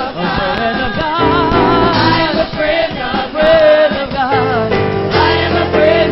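Live gospel praise music: a choir-backed praise team singing over a band with bass and keyboard.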